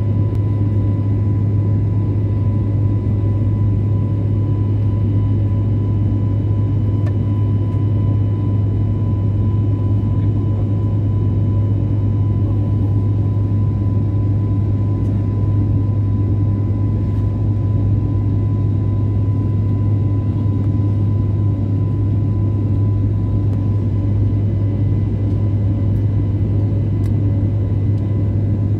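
Steady engine drone inside a jet airliner's cabin during the climb after takeoff: a deep, even hum with a thin steady tone above it.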